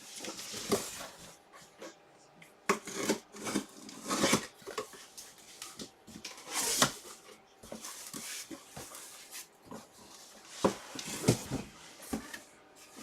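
Cardboard and plastic packaging being handled and pulled open, with irregular rustling, crinkling and small knocks.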